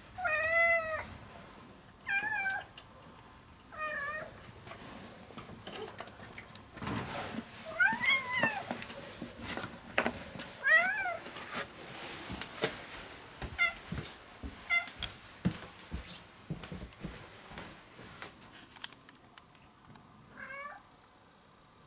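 A ginger-and-white cat meowing about eight times in a row, several calls rising then falling in pitch, asking, as the owner guesses, either to be let outside or for food. Scattered small clicks and knocks fall between the meows in the middle stretch.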